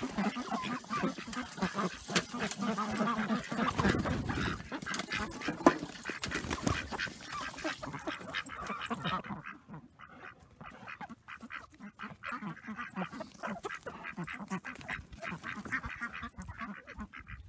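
Domestic ducks quacking repeatedly. During the first half, hot water is poured from a steel tea kettle over a frozen poultry waterer to thaw it, with busy handling noise.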